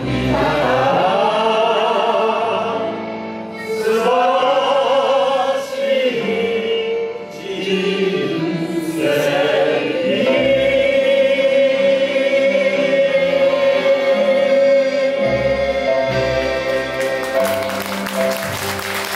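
A group of voices singing a Japanese song in unison to live accompaniment, ending on one long held note; applause breaks out near the end.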